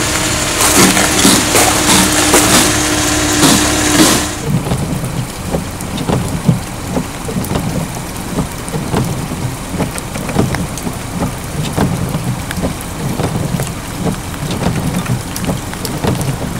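Freezing rain falling on ice-glazed branches: many small irregular ticks over a steady hiss. For about the first four seconds it is covered by a louder rush with a steady low hum, which stops suddenly.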